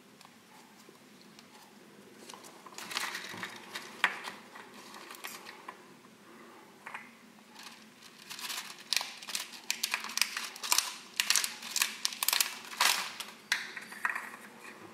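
A small clear cellophane bag of candy pearls being handled and crinkled: a run of sharp crackles, starting a couple of seconds in and thickest in the second half.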